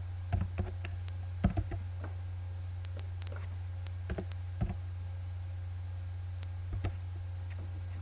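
Computer keyboard keys tapped in a few short, irregular clusters of clicks, over a steady low hum.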